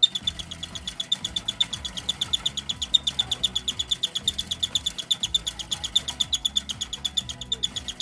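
Cockatiel giving a rapid, even string of short high chirps, about ten a second, while attacking a toy.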